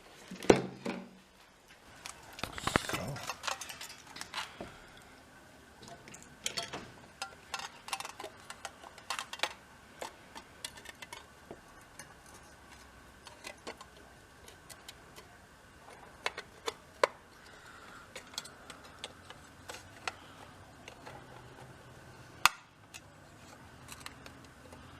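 Scattered clinks, taps and knocks of small metal parts and hand tools being handled, with one louder knock about half a second in and another near the end.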